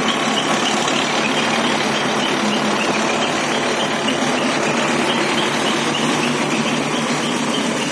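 ACE backhoe loader's diesel engine running steadily and loudly under work, with no revving up or down.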